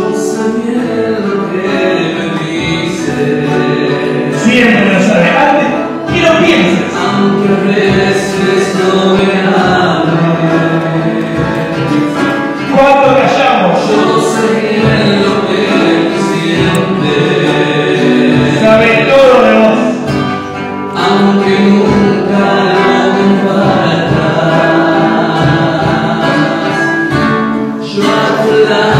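A Christian worship song: voices singing over instrumental accompaniment.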